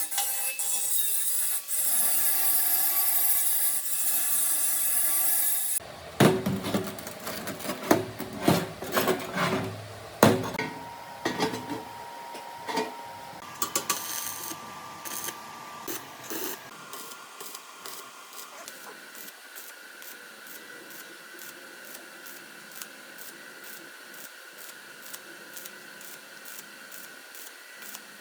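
Metalworking tool sounds. A power tool runs steadily with a grinding, rasping noise for about six seconds and stops suddenly. A run of sharp knocks and clatter follows and thins out, then faint, regular ticking.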